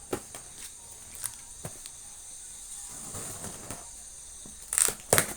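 Chocolate box packaging being handled and opened: scattered small clicks and taps, a stretch of crinkling about three seconds in, and two loud sharp rustles or rips near the end, over a steady background hiss.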